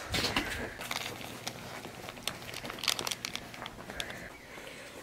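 A small folded paper packet being handled and unfolded by hand, with light paper crinkling and scattered small clicks.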